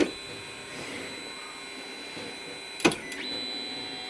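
Ender 3's stepper motors homing: a steady whine of several high tones as the axis drives the laser carriage across the gantry, a sharp click near three seconds in, then a new, higher whine as the next axis starts moving.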